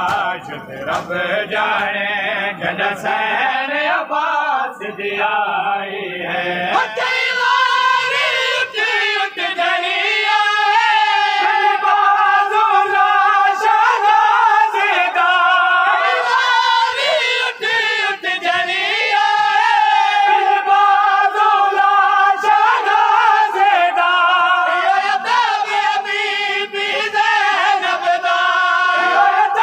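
A group of men chanting a Shia noha (mourning lament) together, led by a solo reciter; the voices grow louder and fuller about seven seconds in.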